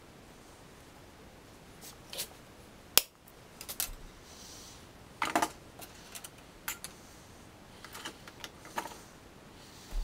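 Thin metal rods and pliers being handled on a wooden workbench: scattered sharp clicks and clinks, the loudest about three seconds in and a quick cluster a couple of seconds later.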